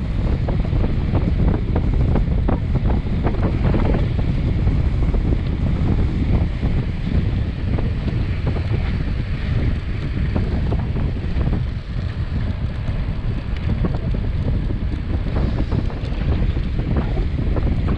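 Wind buffeting the camera microphone as a road bike descends a mountain road at 30 to almost 50 km/h, a loud, steady low rush. Short ticks and knocks sound through it in the first few seconds and again near the end.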